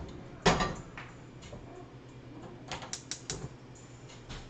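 Heavy cast iron skillet set down on a gas stove's grate with a knock, then a quick run of clicks from the burner's igniter about three seconds in as the gas is lit.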